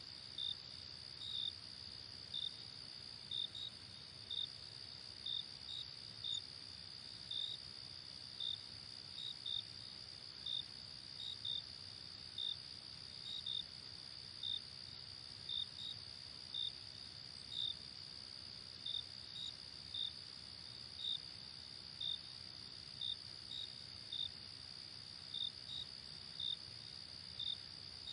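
Crickets chirping: a steady high-pitched trill in the background, with a nearer cricket's short, louder chirps repeating irregularly about once or twice a second.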